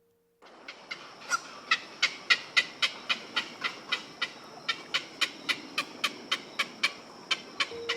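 An animal calling in a rapid series of short, sharp calls, about three to four a second, over a steady background hiss, starting about half a second in.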